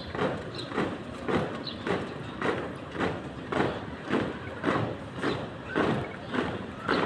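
Marching feet stamping in step, a steady beat of about two footfalls a second.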